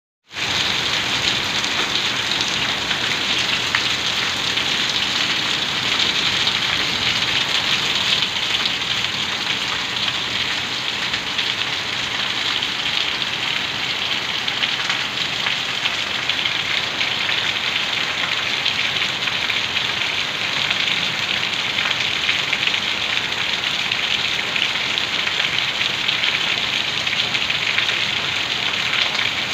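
Heavy rain falling steadily on a concrete rooftop and corrugated sheet roofing, an even rush of drops with no let-up.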